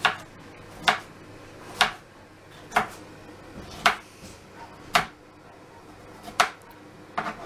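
Knife slicing a cucumber on a chopping board: a sharp knock each time the blade goes through and meets the board, about once a second.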